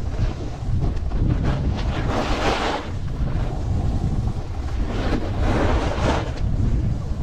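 Wind buffeting the camera microphone in a steady low rumble, with the snowboard's edge scraping across packed snow in two swells of hiss as the rider carves turns.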